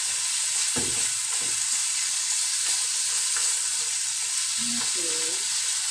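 Marinated chicken pieces sizzling steadily in a frying pan on a gas burner while a wooden spatula stirs them, scraping and knocking against the pan a few times early on.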